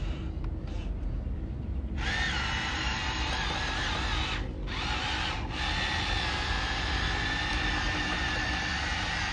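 Small electric motors of a radio-controlled construction model whining as they drive. The whine starts about two seconds in, stops for about a second midway, then runs again until near the end.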